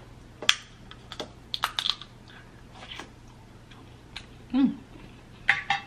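Snow crab leg shells cracking and clicking in the hands as they are broken open and picked, a string of short sharp snaps at irregular intervals. A brief vocal sound comes about four and a half seconds in.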